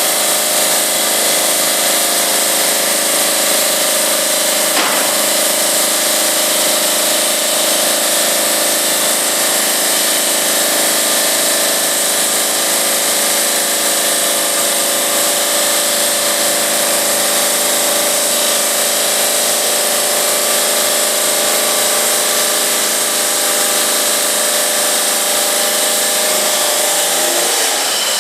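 GMM Brio Easy CNC bridge saw running steadily while cutting 4 cm granite: a machine whine of several steady tones over a strong hiss. Near the end the tones waver and shift in pitch.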